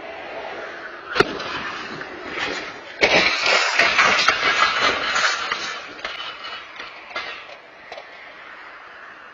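Car collision on a street: a sharp bang about a second in, then a louder crash about three seconds in, a couple of seconds of noise with several sharp knocks in it, dying away over the next few seconds.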